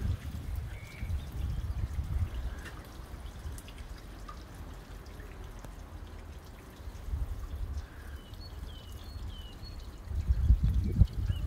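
Wind buffeting the microphone in uneven gusts, strongest in the last second or so. A few faint, short bird chirps come in near the end.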